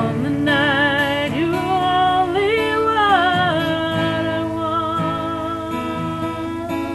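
A woman singing a slow song with vibrato and long held notes, accompanied by her own strummed acoustic guitar.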